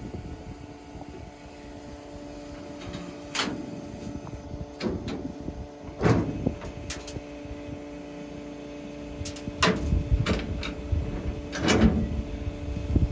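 Farm machinery engine running with a steady hum, with several sharp metallic clunks and clicks scattered through, from work on a combine's corn head.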